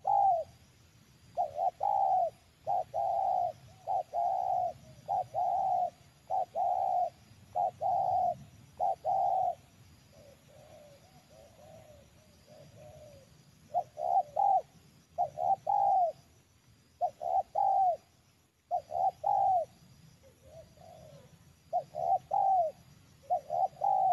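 Spotted dove cooing in quick runs of short coos, with a softer stretch of calls in the middle: the decoy dove's call used to lure wild doves to the snare.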